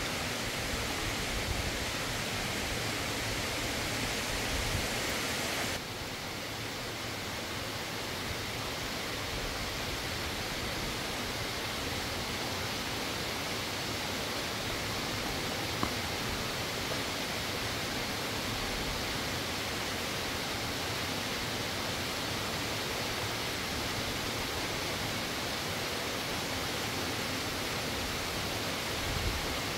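Steady rush of flowing river water in a rocky gorge, an even hiss that drops slightly in level about six seconds in. A single small click comes about halfway through.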